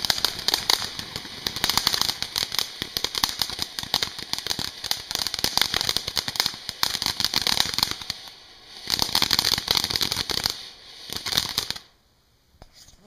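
TNT Purple Rain fountain firework spraying sparks with a hissing rush and dense crackling. It comes in surges, dips about eight seconds in, picks up again, and dies out about twelve seconds in as the fountain burns out.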